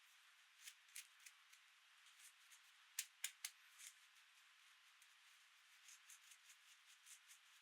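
Faint, scattered clicks and taps of small toy pieces being handled, over a low steady hiss; the sharpest two clicks come about three seconds in, a quarter of a second apart.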